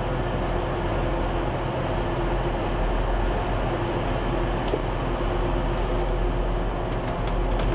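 Steady hum inside a train carriage standing at the platform: a low drone with a few steady tones from the train's running machinery and ventilation.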